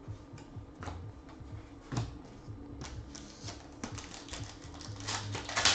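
Trading cards being handled and shuffled by hand, a run of light clicks and rustles that grows busier and louder near the end.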